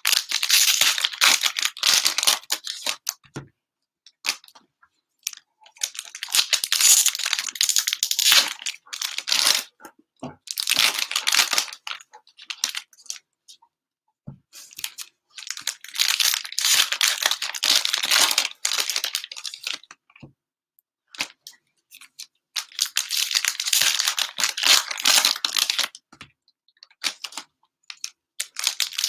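Cellophane wrappers of Mosaic NFL football cello card packs being torn open and crinkled by hand. The crackling comes in about six bursts of a few seconds each, with short pauses between.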